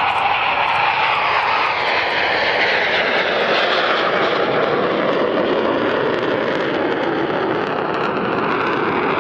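BAE Hawk jet trainer taking off and climbing away, its single Adour turbofan giving a loud, steady jet roar. The pitch falls gradually as it passes and recedes.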